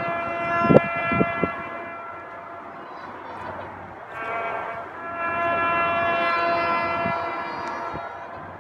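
Brass instruments playing long held notes in two phrases: the first dies away about two seconds in, and the second swells from about four seconds in and fades near the end. A few low thumps come about a second in.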